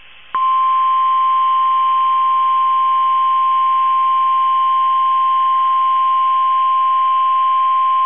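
NOAA Weather Radio warning alarm tone (1050 Hz): one steady, loud, high beep that cuts in about a third of a second in, after a moment of radio hiss, and holds unbroken. It is broadcast to switch on alert receivers, here as part of the weekly test of the tone and SAME alert system.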